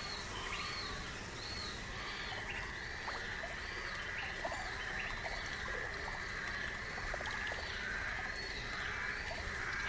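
Night-time bush ambience: a steady high drone with a short rising-and-falling chirp repeating about twice a second, and scattered soft clicks.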